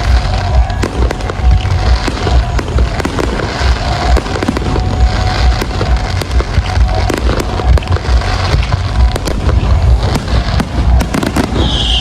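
Aerial fireworks display going off continuously: rapid crackling and sharp bangs over a steady barrage of deep booms.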